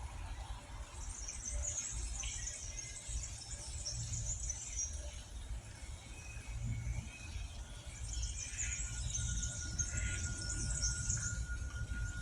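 Small birds twittering in rapid, very high-pitched chattering phrases, in two long spells with a pause between, over a steady low rumble of background noise. About two-thirds of the way in, a faint steady high tone joins.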